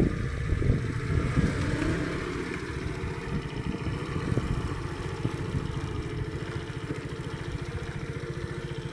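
A vehicle engine running with an even, rapid pulsing beat, a little rougher for the first couple of seconds and then steady.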